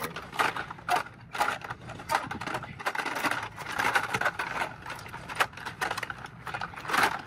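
Plastic blister packs of die-cast toy cars clicking and rattling as they are handled and flicked through, in irregular clusters of clacks over a steady low hum.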